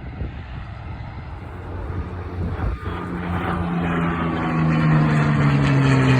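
Piston-engined WWII warbird flying past, its engine note growing louder from about three seconds in and sliding slightly lower in pitch as it nears its loudest at the end.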